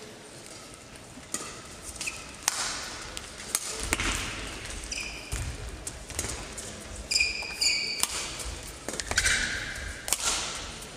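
Badminton singles rally in a sports hall: a series of sharp racket strikes on the shuttlecock, short high squeaks of players' shoes on the court floor, and dull thuds of footfalls.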